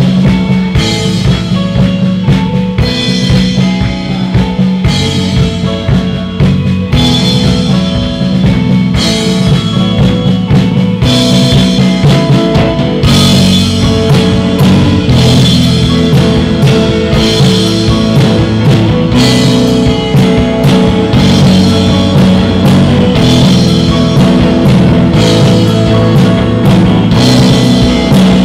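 Loud instrumental post-rock played by a band: a drum kit with a heavy bass drum and crashing hits drives under sustained, chordal instruments. It grows fuller and denser about halfway through.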